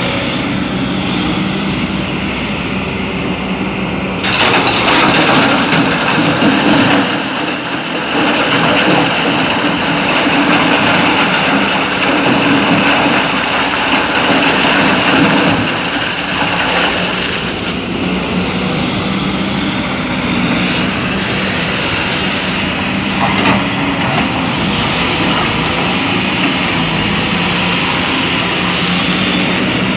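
Excavator's diesel engine running, louder and harsher under load from about four seconds in until about sixteen seconds, then settling back to a steady hum, with a couple of brief knocks later on.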